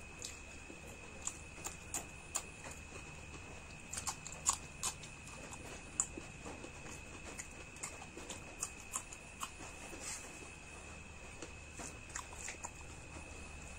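Close-miked eating sounds: a person chewing food with irregular wet clicks and smacks of the mouth, a few louder about four and a half and six seconds in. A faint steady high whine sits underneath.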